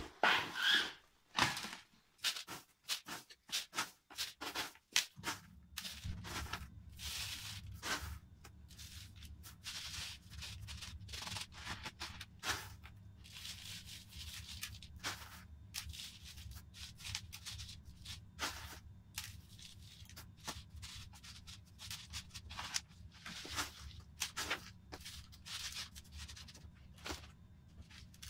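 Leca clay pebbles and seramis granules rattling and crunching against a plastic pot as they are poured in and worked around orchid roots: many short clicks and scrapes. A steady low hum starts about five seconds in.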